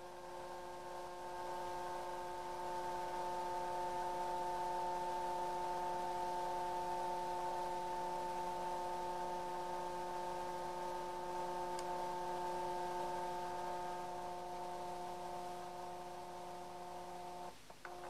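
Scanner motor whining steadily as the scan head travels, a hum of several steady tones that swells over the first few seconds, slowly fades, and breaks off briefly near the end.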